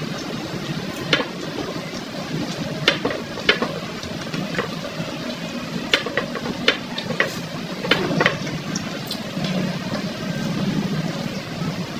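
Close-up eating sounds of a person chewing fried pork chop and eating with the hands: irregular wet mouth clicks and smacks, about seven sharp ones scattered through, over a steady background hum.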